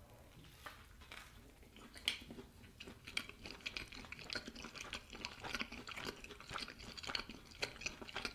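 A man chewing a mouthful of meatball sandwich, a fried meat patty in a soft bread roll, close to the microphone: faint, irregular chewing sounds, sparse at first and steady from about three seconds in.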